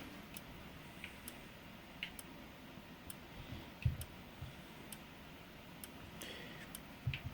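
Faint, sharp ticks about once a second from a Simplex TrueAlert 4903-9425 strobe firing over and over in free-run mode. A soft low thump about four seconds in.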